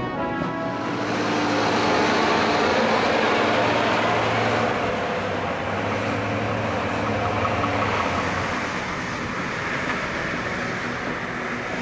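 Heavy truck's diesel engine running under load while it hauls a tipper semi-trailer, a steady low engine hum under dense rumbling noise. It grows louder about a second in and eases slightly near the end.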